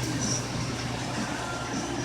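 Coal forge running with its blower on: a steady low hum with a rushing air noise as the fire is brought up to heat.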